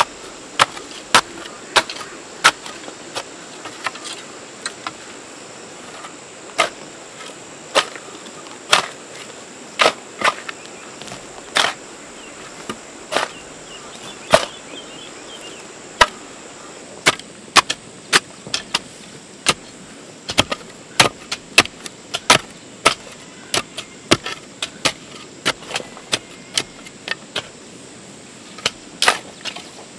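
Irregular sharp knocks or chops, about one or two a second and sometimes in quick clusters, over a steady high-pitched insect drone.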